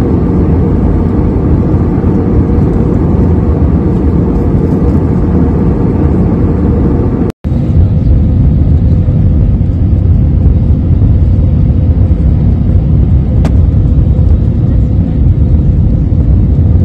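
Jet airliner cabin noise heard from a window seat: a loud, steady rush of engine and airflow with a faint constant hum running through it. It drops out for an instant about seven seconds in, where two clips are joined.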